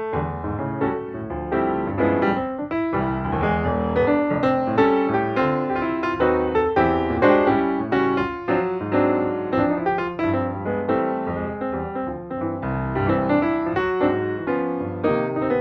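Background piano music: a steady flow of notes with a bass line under a melody.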